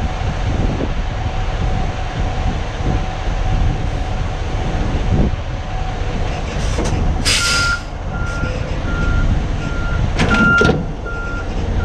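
Semi-truck diesel engine running as the tractor backs under a flatbed trailer to hook up. From about seven seconds in, a backup alarm beeps steadily a little under twice a second, with two short bursts of hiss.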